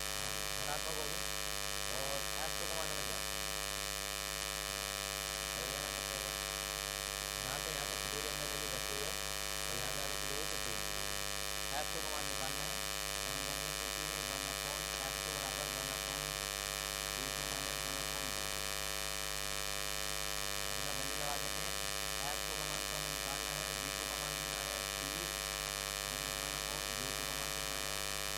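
Steady electrical hum and buzz with many overtones, interference noise from an inverter-powered light getting into the recording.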